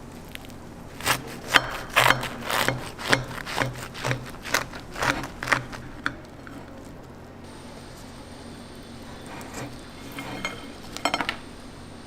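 A run of scraping strokes on a hard surface, about two a second for several seconds, then a single click and a short rattle near the end.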